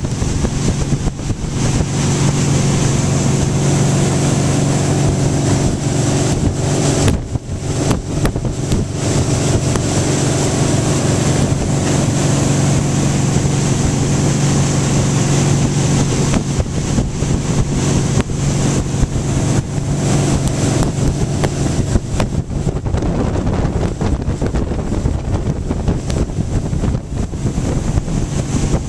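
Towing motorboat's engine running steadily at ski-towing speed, a constant low drone, under the rush of the wake and wind on the microphone.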